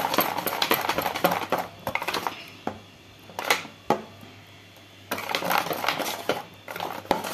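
Wire whisk beating gram-flour batter in a stainless steel bowl: fast clicking and scraping of the wires against the steel. A little past the middle it breaks off to a couple of single knocks and a short lull, then the rapid whisking starts again.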